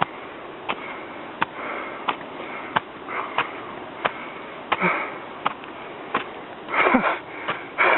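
Slippers slapping on steps in a steady climbing rhythm, about one step every 0.7 seconds, with the climber's breathing between the steps.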